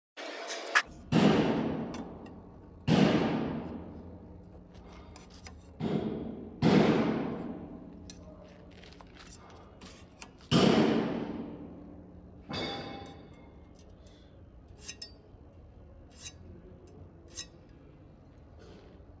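Steel struck hard about six times at irregular intervals, each blow ringing out and fading over a second or two, followed by a few light metallic clicks.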